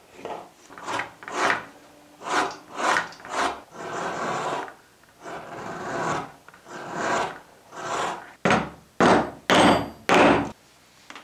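Hand blades shaving and skiving vegetable-tan leather: a string of about a dozen separate scraping strokes, each around half a second long, with four louder, sharper-starting strokes near the end.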